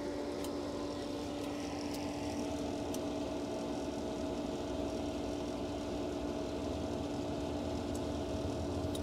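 Hayward H400FD pool heater's combustion-air blower (inducer motor) running with a steady, even hum ahead of ignition, after the heater has been called on for heat.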